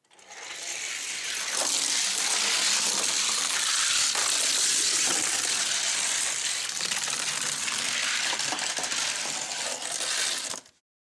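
Two 1:64 die-cast cars, a Johnny Lightning 1929 Model A Truck and a Hot Wheels Shoe Box, rolling fast down a gravity race track: a steady hissing rattle of small wheels on the track with a few light clicks. It fades in at the start and cuts off suddenly near the end.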